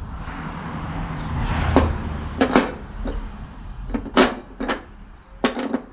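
Small metal parts clinking and knocking as a washer and mower deck spindle hardware are handled and fitted: a rustling hiss at first, then about eight sharp clinks over the last four seconds.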